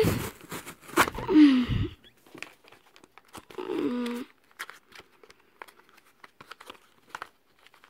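Paper and plastic packaging crinkling and tearing as a mailed envelope is handled and torn open, in scattered small rustles and clicks. Two brief murmured voice sounds come near the start and about halfway through.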